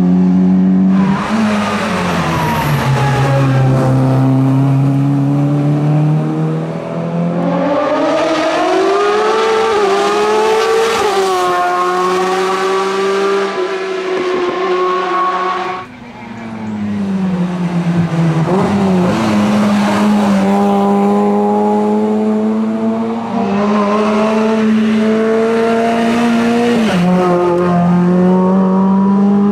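Hill-climb race car engines at high revs, the engine note climbing and jumping down again with each gear change. About halfway through the sound drops away briefly, then another run of hard acceleration and shifts follows.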